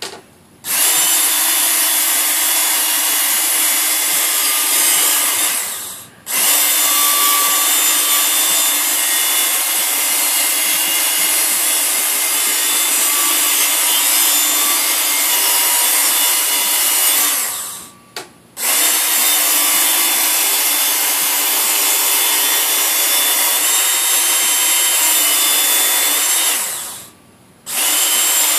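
Work Sharp handheld electric belt sharpener running with a fine belt while a steel shovel edge is drawn through it, polishing and deburring the edge. It runs in four long stretches, winding down and stopping briefly three times between passes.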